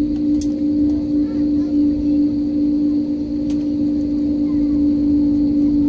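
Cabin noise of an Airbus A320-family jet taxiing after landing: a steady engine hum with one strong constant low tone over a rumble.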